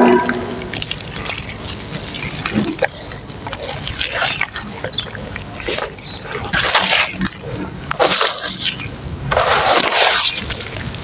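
Soft mud and dirt being worked in water into a paste: irregular wet squelching and sloshing, with a few louder splashy bursts in the second half.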